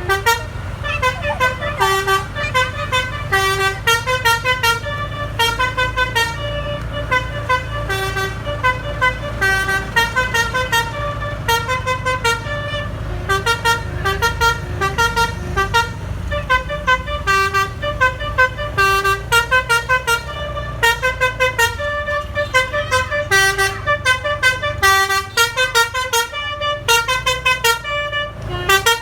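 Basuri telolet musical horn on an SJM Trans bus, playing a fast, continuous run of short notes at changing pitches, over a steady low rumble.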